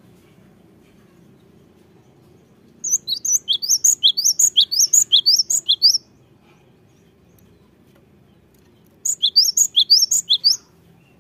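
Cinereous tit (gelatik batu) singing in two bursts of rapid, sharp, high-pitched notes, several a second. The first burst lasts about three seconds and the second, shorter one comes near the end.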